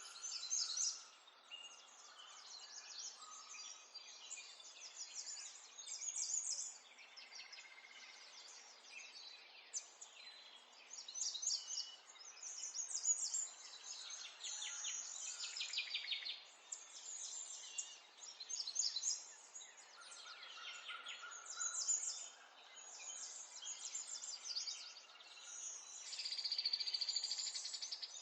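Morning chorus of small songbirds: many overlapping high chirps and rapid trills with no pause, and a longer buzzy trill near the end.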